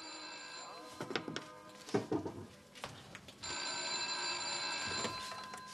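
Cream rotary desk telephone ringing twice: the first ring dies away about a second in, and a second ring of under two seconds comes about halfway through. A few knocks are heard between the rings.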